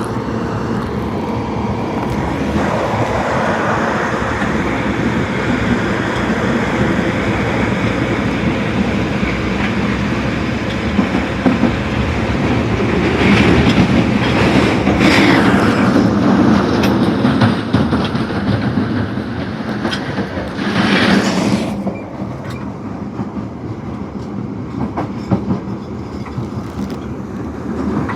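Osaka Metro Tanimachi Line 22 series subway car running on the rails, with a shrill, high-pitched running sound. The sound swells in the middle, then turns quieter and duller for the last several seconds.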